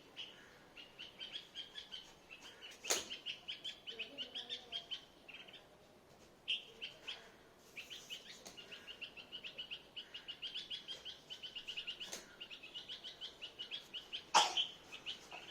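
Bird chirping: long runs of quick, high chirps, several a second, with a short pause midway. A few sharp clicks sound in between, one near the end louder than the rest.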